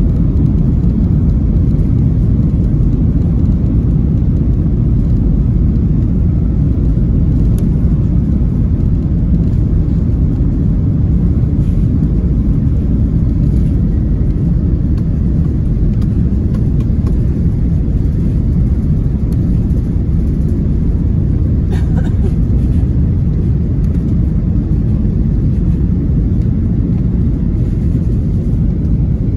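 Steady low rumble of an Airbus A380 heard from inside the passenger cabin as it rolls along the runway: engine noise and runway rumble.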